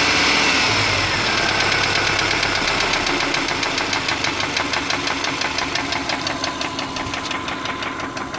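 2003 Subaru Forester's flat-four boxer engine settling from higher revs in the first second, then idling with a rapid, even knocking that grows plainer as the revs drop. The owner suspects piston slap, rod knock or the belt tensioner; the knock persists when warm and almost goes away at higher RPM.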